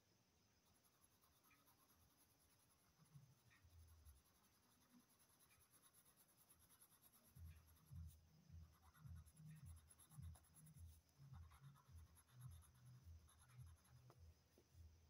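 Faint scratching of a coloured pencil shading on paper; about halfway in it settles into quick back-and-forth strokes, two or three a second.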